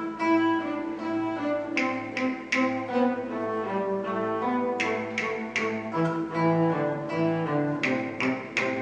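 Small early-music string ensemble playing a Hungarian dance. A bowed bass string instrument holds sustained notes under a plucked lute, whose chords strike in short clusters.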